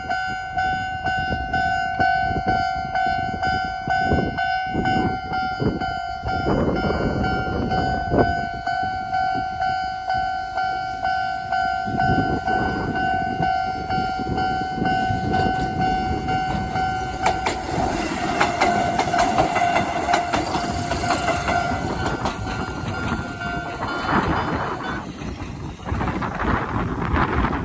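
Japanese level crossing's electronic alarm ringing its standard tone while a Konan Railway Owani Line train runs over the crossing, wheels clacking over the rail joints, heaviest in the middle stretch. The alarm cuts off about 24 seconds in as the train clears the crossing.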